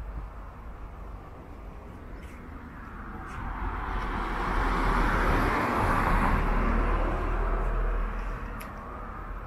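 A road vehicle drives past: engine and tyre noise swells from about three seconds in, is loudest around the middle, and fades away near the end.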